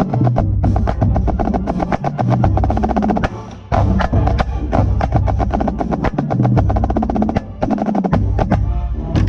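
Marching snare drum played up close in rapid, dense stroke patterns, with the full marching band's brass and bass drums playing behind it. The playing pauses briefly about three seconds in.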